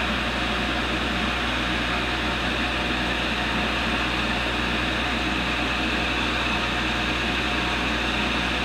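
Tool and cutter grinder running steadily, its motor and spinning wheel making an even whir with no cutting going on.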